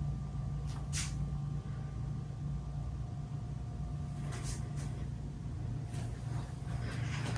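A steady low hum with a few faint clicks and knocks: one about a second in, a couple around the middle and more near the end.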